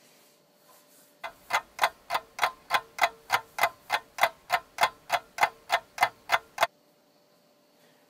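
Clock ticking sound effect: about eighteen sharp, evenly spaced ticks, roughly three a second, that start about a second in and stop suddenly.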